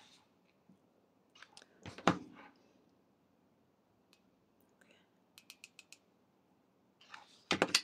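Mini hot glue gun being handled: a knock about two seconds in, then a quick run of five or six light clicks as its trigger is squeezed to push glue onto the paper doll.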